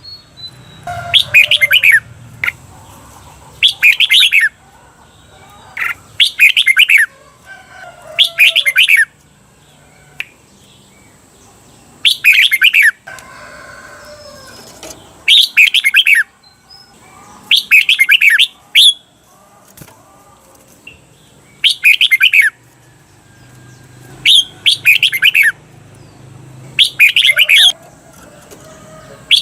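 Red-whiskered bulbul singing its short, loud, warbled song phrase over and over, about ten times, one every two to three seconds. This is the 'double' (เบิ้ล) song used to train caged bulbuls.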